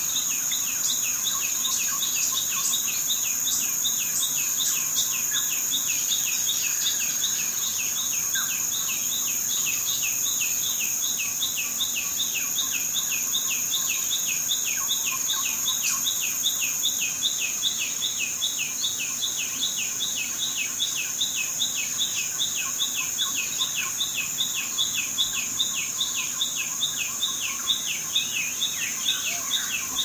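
Rhythmic chirping at about three to four chirps a second, over a constant high-pitched whine, typical of insects such as crickets.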